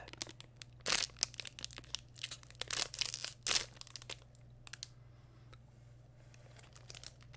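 Plastic wrapper of a chocolate snack cake being torn open and crinkled by hand: a run of sharp crackles for about four seconds, then only faint rustling.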